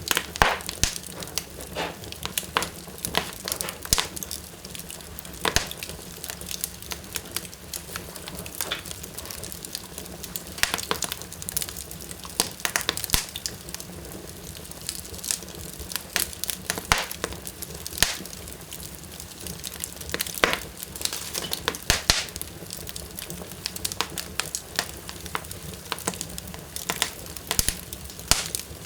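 Wood fire burning strongly in a fireplace, crackling steadily with frequent sharp pops over a low hiss.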